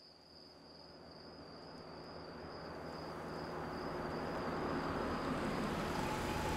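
Crickets chirring in one steady high tone while a car approaches and pulls into a driveway, its engine and tyre noise growing steadily louder.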